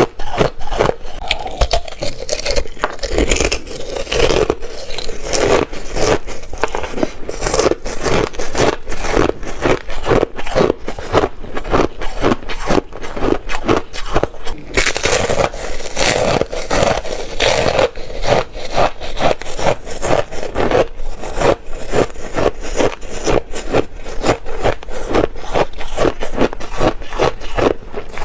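Thin ice being chewed close to the microphone: rapid, continuous crunching and crackling, several crunches a second.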